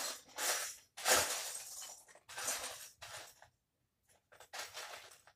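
Loose plastic Lego bricks rattling and clinking in several short bursts, as pieces are rummaged through.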